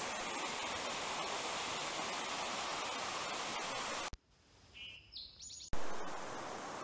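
Mountain stream rushing over mossy rocks in a small cascade, a steady hiss of water. About four seconds in it cuts off to near silence with a few short high bird chirps. Then, with a click, the rushing of a wider rocky creek comes back.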